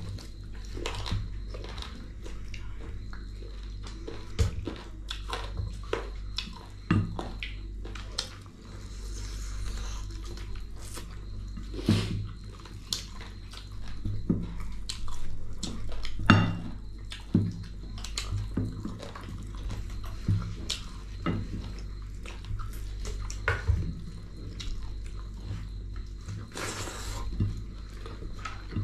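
A person chewing and biting a meal of fried chicken leg with rice and dal: irregular wet smacks, crunches and clicks, a few sharper than the rest, over a steady low hum.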